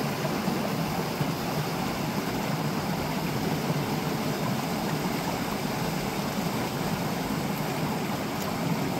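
Steady rushing of a mountain stream, an even, unbroken wash of water noise.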